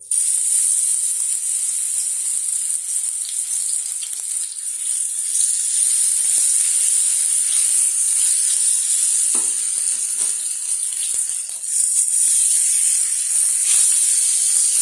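Marinated prawns frying in hot oil: a steady, high sizzling hiss with a few sharp pops of spitting oil.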